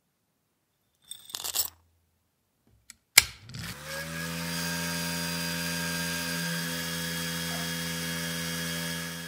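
Small rusty screws and parts tipped into the powdery media of a cyclone tumbler, a brief rattle about a second in. Then a sharp click, and the tumbler's electric motor spins up and runs with a steady hum.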